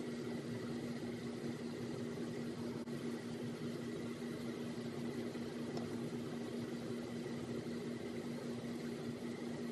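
Steady machine hum with a constant low tone and a faint high whine, unchanging throughout.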